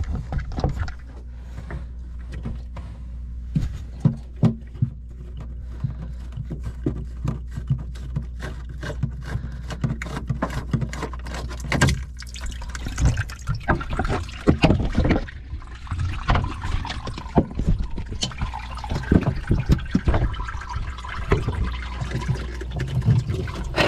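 Speed transducer being twisted and worked loose by hand in its through-hull fitting, with many clicks and knocks of handling. Lake water trickles and splashes in around the fitting as it comes loose, more continuously in the second half.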